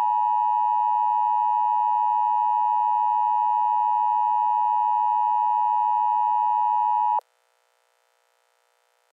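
Emergency Alert System attention tone: a loud, steady alarm tone held unchanged, cutting off abruptly about seven seconds in and leaving only a faint hum. It signals that an emergency alert message is about to be read.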